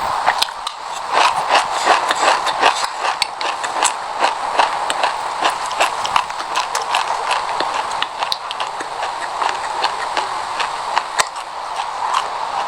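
Close-up crunching of a mouthful of sesame seeds being chewed: many sharp, irregular crackles over a continuous crackly texture.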